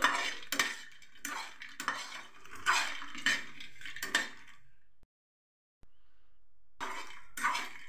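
A steel spoon scraping and knocking against a stainless steel pan as fox nuts (makhana) and raisins are stirred while they roast. The sound drops out completely for about a second just past the middle, and the stirring strokes come back near the end.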